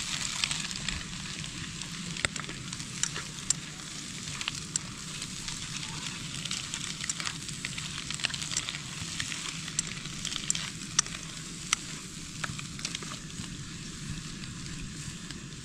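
Green chili peppers and eggs sizzling as they are stir-fried in a camping pan, with chopsticks clicking against the pan now and then as the food is stirred.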